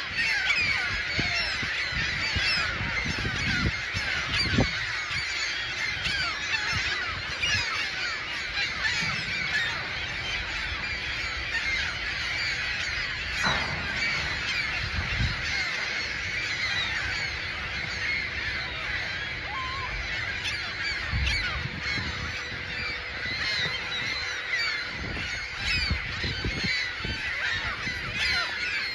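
A large flock of gulls screeching, many overlapping calls forming a continuous din.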